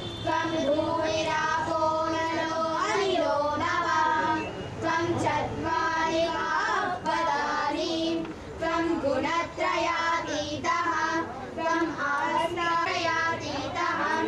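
High voices singing a slow song in long, wavering held notes, phrase after phrase.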